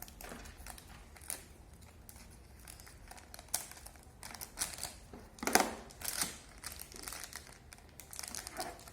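Plastic packaging of a collectible fairy blind packet crinkling and rustling in irregular bursts as it is handled and opened by hand, the loudest rustle a little past halfway.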